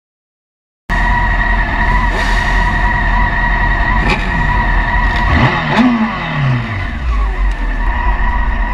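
Group of sport motorcycles on the move, recorded from a bike-mounted camera: steady wind and engine rush starting about a second in, with one engine's pitch falling between about five and seven seconds in.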